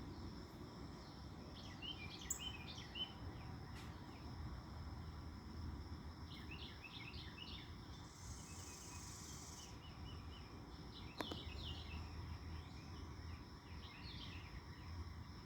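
Small birds chirping in scattered bursts of short notes, over a steady high insect trill. About eight seconds in an insect buzzes for about a second and a half, and a few sharp clicks stand out.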